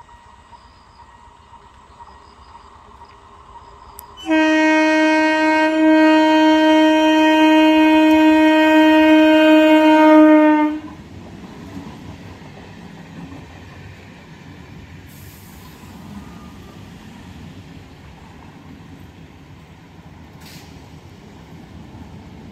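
An electric multiple-unit local train sounds one long horn blast of about six seconds on a single steady note, starting about four seconds in. When the horn stops, the train's coaches run past with a steady rumble of wheels on rail.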